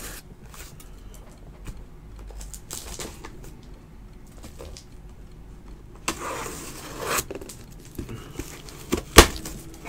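Sealed trading-card boxes being handled and unwrapped: light scraping and rustling, a rustle of packaging about a second long around six seconds in, and a sharp tap about nine seconds in, the loudest sound.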